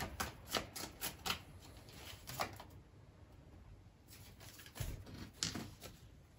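Tarot cards being handled on a table: a quick run of sharp card snaps and taps in the first second or so, then a single tap, a dull thump and a couple more taps as cards are shifted and laid down.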